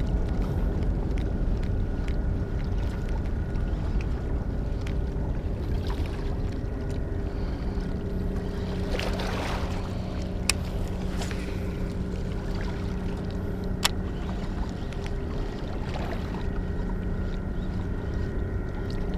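Steady drone of a boat engine out on the water over a low rumble of wind and water, growing a little stronger about halfway through. A couple of sharp clicks from a baitcasting reel being worked as a lure is retrieved.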